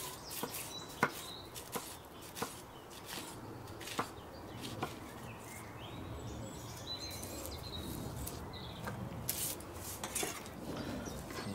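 Chef's knife cutting grilled romaine lettuce hearts into strips on an end-grain wooden cutting board: sharp knocks of the blade on the wood, about one a second at first, then sparser.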